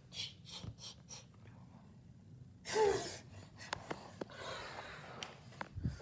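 A short voiced gasp with a falling pitch about three seconds in, between quiet breaths, with rustling and clicking from the camera being handled and moved.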